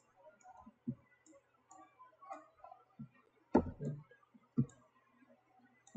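A few faint clicks of a computer mouse, the strongest about three and a half seconds in, over low room noise.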